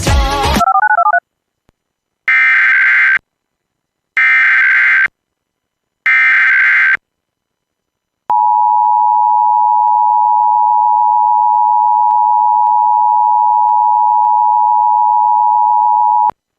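Emergency Alert System broadcast tones: after music cuts off about half a second in, three short bursts of SAME header data sound about two seconds apart, each lasting about a second. Then the two-tone EAS attention signal is held steady for about eight seconds and stops abruptly.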